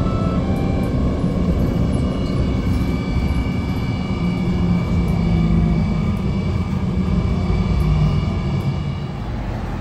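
Inside a moving city bus: steady engine and road rumble, easing slightly near the end.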